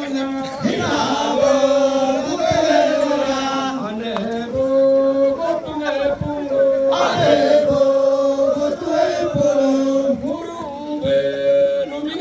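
Group of dancers chanting a Nyishi buya song together: mostly men's voices, holding long steady notes on a few pitches, with short breaks between phrases.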